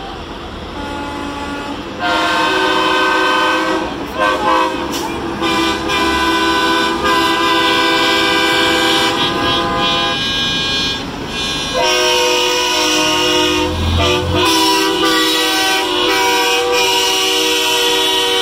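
Semi-truck air horns blowing long, chord-like blasts, one horn after another, with short breaks about 4, 10 and 14 seconds in, over the low rumble of the passing trucks.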